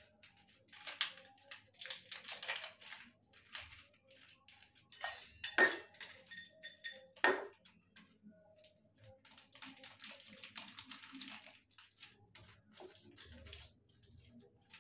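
Metal puja utensils and small items being handled and set down on a table: scattered clinks and rustling, with two louder metal clanks about five and a half and seven seconds in, the first leaving a brief metallic ring.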